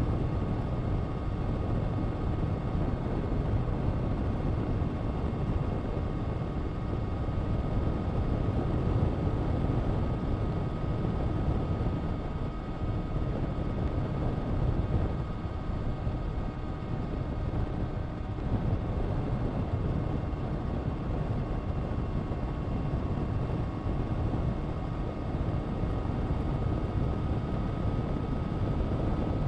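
Honda CBR1000RR-R SP Fireblade's inline-four engine with an Akrapovič exhaust, running steadily at a constant pace with a steady drone and a thin constant whine, without revving up or down.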